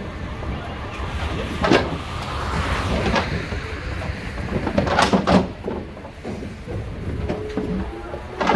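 Several sharp metal clanks and bangs from a livestock trailer's panels and gates, loudest about five seconds in, over a steady low rumble.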